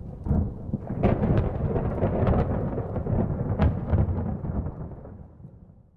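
Thunder rumbling with sharp crackles over a hiss of rain, loudest in the middle, then fading out near the end.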